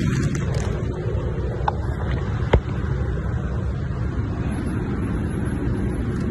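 Steady low rumble of a car running, heard inside its cabin, with a sharp click about two and a half seconds in.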